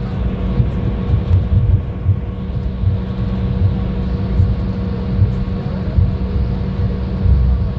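Jet airliner cabin noise while taxiing: a steady low engine rumble with a steady mid-pitched hum running through it.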